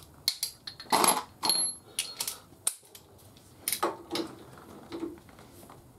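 Scattered metallic clicks and knocks as a socket torque wrench is set onto nuts and bolts on the engine, with a short high ringing tick about one and a half seconds in.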